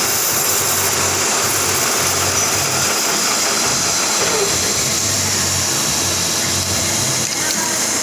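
Manual metal lathe running with a steady machine hum and hiss.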